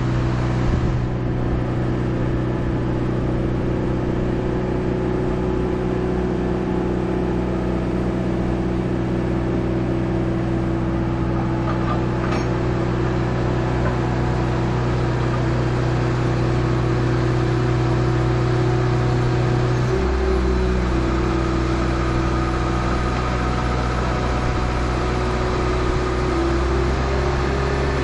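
Diesel engine of a boat travel lift running steadily. About 20 seconds in its note shifts and the low rumble grows.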